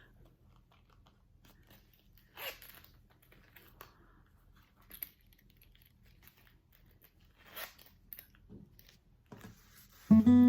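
Faint, scattered handling noises: a few short rustles and light clicks, with quiet room tone between them. Just before the end, acoustic guitar music comes in.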